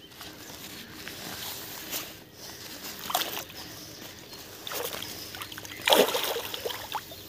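Water sloshing around a carp held in a floating sling at the pond's edge, with a few small splashes, then a loud splash about six seconds in as the carp kicks free of the sling on release.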